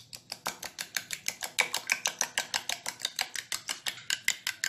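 A steel spoon clinking rapidly against a glass bowl while beating a raw egg with salt and pepper, an even rhythm of about nine clicks a second.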